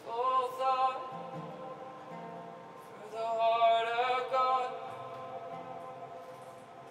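Live worship music: a voice sings two drawn-out phrases, one at the start and a louder one about three seconds in, over soft instrumental backing.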